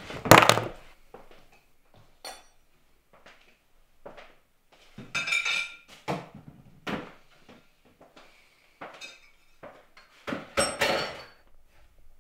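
Kitchen clatter: dishes and cutlery clinking and knocking in a string of separate clatters, the loudest just after the start.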